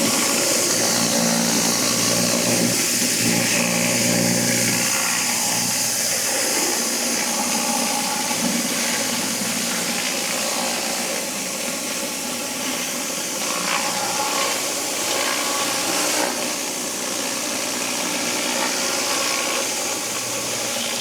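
Pressure washer running with a turbo nozzle blasting water: a steady machine hum under a bright hiss of spray, with small shifts in the spray noise as the jet moves over the car.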